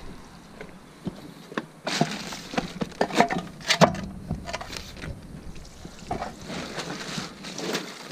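Footsteps on gravel and a series of knocks as a wooden block is set down against a pickup's back tire as a wheel chock, the loudest knock a little before the middle.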